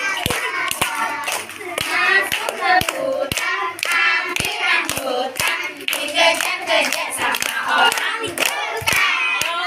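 A group of people singing a song together and clapping along in time, about two claps a second.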